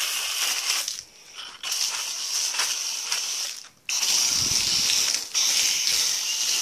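Garden-hose foam gun spraying a jet of water onto a foam-covered pickup truck: a steady hiss that cuts off briefly twice, about a second in and just before four seconds in.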